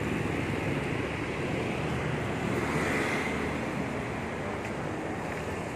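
Steady street noise of passing traffic, with wind on the microphone.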